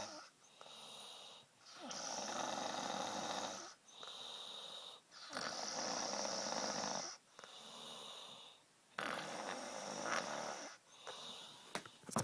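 A girl snoring in her sleep: three long snores of about two seconds each, with shorter, quieter breaths between them that carry a faint high whistle.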